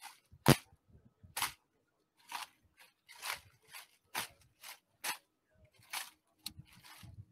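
A string of sharp slaps and clicks at uneven spacing, roughly one a second: a rifle drill team slapping rifles and striking heels in unison. The loudest comes about half a second in, with a heavy thud beneath it.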